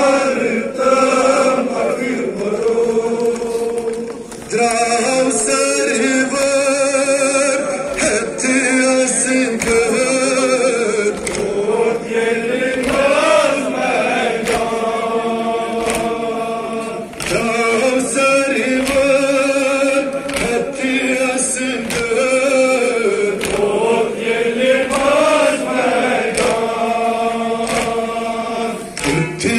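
Men chanting a Kashmiri nowha, a Muharram lament, together in chorus, the melody rising and falling in long phrases. Sharp slaps of hands on chests (matam) strike through the chant again and again.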